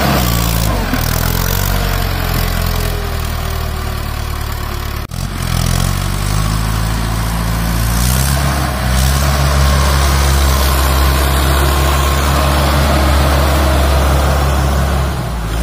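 Mahindra Arjun 555 DI tractor's four-cylinder diesel engine running steadily under load as it churns through a flooded, muddy paddy field. The sound cuts out for an instant about five seconds in, after which the engine note rises and holds steady.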